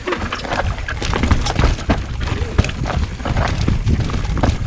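Mountain bike rattling over loose, dry dirt and rocks: irregular clattering knocks from the bike over a steady low rumble.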